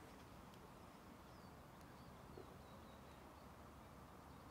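Near silence: faint outdoor ambience, with a few faint, short bird chirps in the middle.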